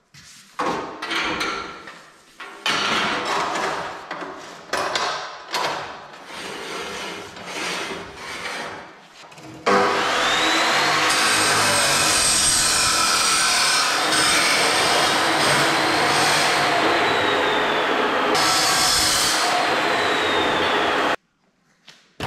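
Steel tubing scraping and knocking as it is slid along a rack, then an abrasive chop saw spins up and grinds through steel tube for about eleven seconds, cutting off suddenly.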